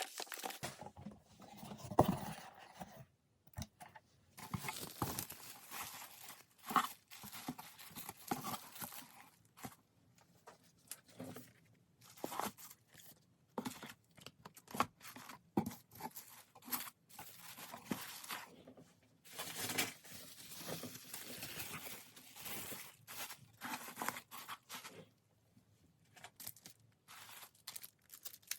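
Hands handling packaging: plastic and paper crinkling and tearing in irregular short bursts, with a sharp knock about two seconds in.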